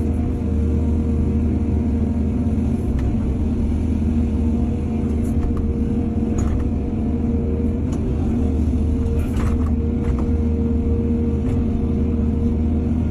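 Heavy diesel earthmoving machinery running steadily: a deep engine rumble with a steady whine above it and a few light knocks.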